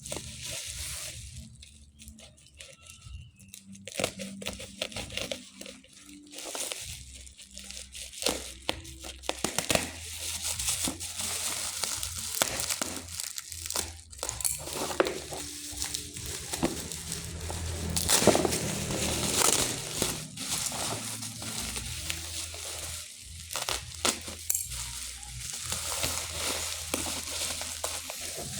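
Product packaging being unwrapped by hand: crinkling, crumpling and tearing, broken by irregular clicks and handling knocks.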